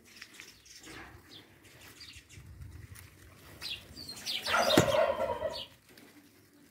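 Fuchsia leaves rustling and brushing against the phone as a hand pushes through the potted plant, with a louder scraping rustle about four and a half seconds in.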